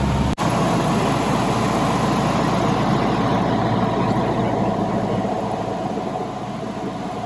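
Cabin noise of a 1946 Cessna 140 in flight, heard from inside the cockpit: its four-cylinder engine and propeller running steadily with wind rush on final approach. The sound drops out for an instant just after the start, and it grows slightly quieter over the second half.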